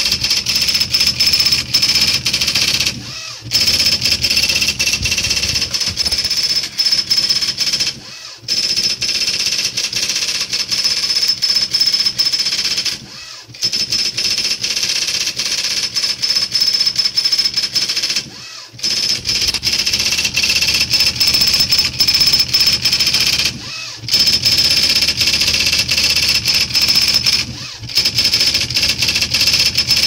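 IBM Wheelwriter 1000 daisy-wheel typewriter printing a stored document automatically: a fast, steady rattle of the print hammer striking the daisy wheel. Brief pauses come about every five seconds as it finishes each line.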